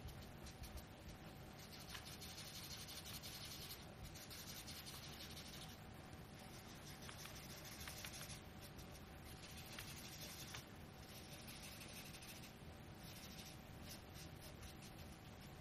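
Cotton pad rubbing powdered soft pastel onto paper: a faint dry rubbing in several spells of one to two seconds, with short pauses between the strokes.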